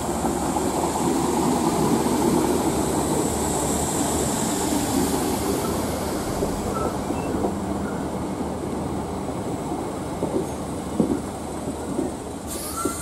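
Class 315 electric multiple unit running past along the platform: a steady rumble of wheels on rail with traction noise, loudest in the first half, and a few sharp clicks near the end.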